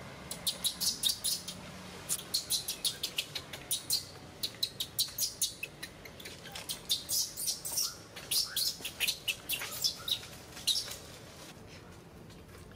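Newborn macaque crying in distress: rapid, high-pitched squeals in bursts of several a second, stopping near the end.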